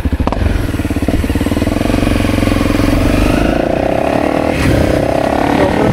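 Honda CRF250L's single-cylinder four-stroke engine pulsing at low revs, then rising in pitch about three and a half seconds in as the bike accelerates.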